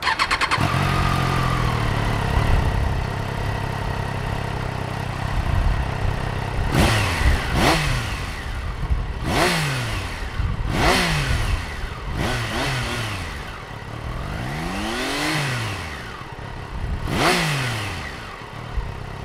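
Triumph Daytona 660's three-cylinder engine firing up and idling, then revved in about eight quick throttle blips, each rising sharply in pitch and falling back to idle.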